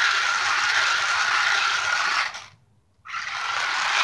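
Toy remote-control car's small electric motor and gearbox whirring steadily. It cuts out for under a second about two and a half seconds in, then whirs again.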